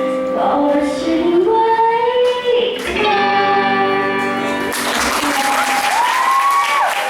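A singer holds the last sung notes over a guitar accompaniment. About two-thirds of the way through the music ends and an audience breaks into applause and cheering.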